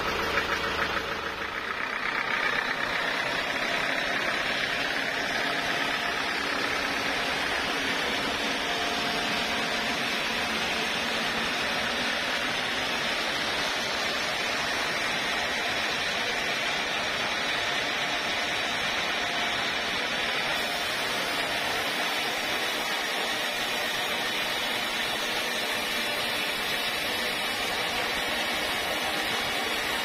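Band sawmill running with its blade cutting lengthwise through a large teak log: a steady, even sawing noise. About two seconds in a low hum drops out and the brighter sawing sound takes over and holds.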